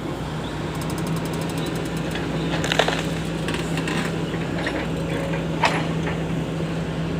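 Excavator's diesel engine running steadily. Over it come a quick rattle about a second in and sharp cracking knocks, the loudest about three seconds in and another past five and a half seconds.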